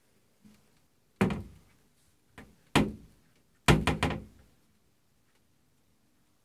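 Vanity cupboard door knocking shut against its frame again and again as a cat paws it open and lets it go: a couple of light taps, two loud thunks about a second and a half apart, then a quick run of three.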